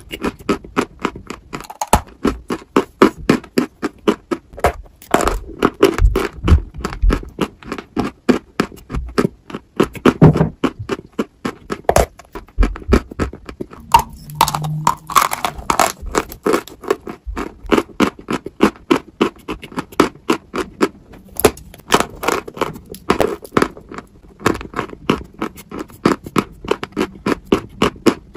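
Close-miked biting and chewing of a dry white chalky block: a rapid run of crisp, sharp crunches, several a second, with louder snaps as pieces break off.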